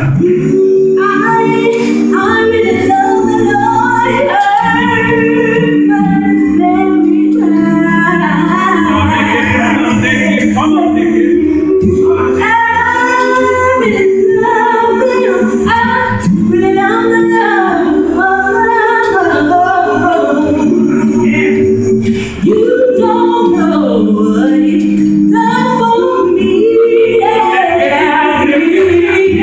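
Gospel vocal group of men and women singing a cappella in close harmony, amplified through microphones: held chords in the lower voices beneath a moving lead line.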